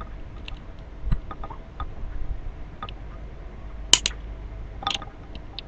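RJ45 crimping pliers pressing a connector onto a UTP cable: a few light clicks, then sharper clicks near the end as the tool closes.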